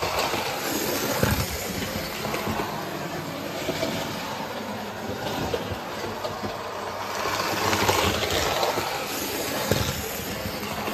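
Hornby OO gauge model trains running on the layout's track: a steady rattling whir of small wheels and motor, with occasional clicks as the wheels cross rail joints.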